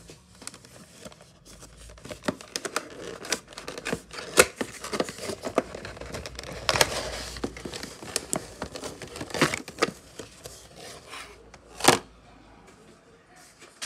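Cardboard box and clear plastic clamshell packaging of a die-cast model airliner being opened and handled, with irregular rustling, crinkling, scraping and clicks. One sharp crack near the end is the loudest.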